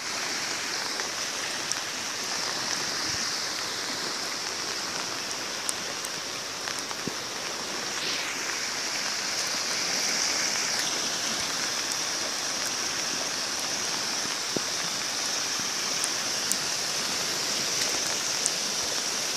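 Steady rush of heavy rain and muddy floodwater flowing over the ground, with scattered faint ticks of drops.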